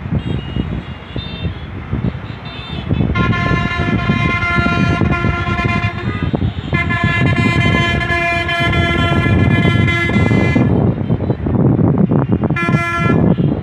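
Vehicle horn on the street below: two long, steady blasts of a few seconds each, then a short one near the end, over a constant rumble of street traffic.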